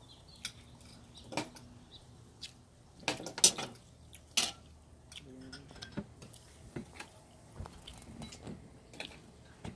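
Cutlery clicking and clinking against plates and oyster shells as people eat, in scattered sharp clicks. The loudest few come around three to four and a half seconds in.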